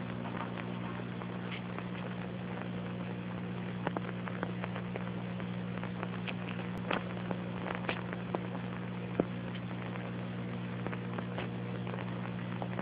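Steady low electrical hum with a hiss and scattered clicks and pops, the noise of a worn, low-quality copy of an old film soundtrack. The sharpest pop comes about nine seconds in.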